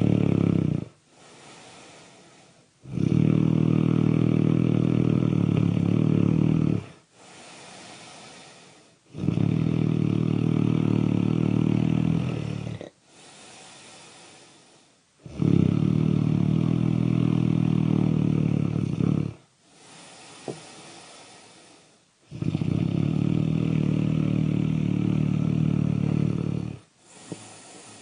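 Loud snoring in a steady rhythm: a long snore of about four seconds, then a quieter breath of about two seconds, repeating roughly every six and a half seconds, four times over.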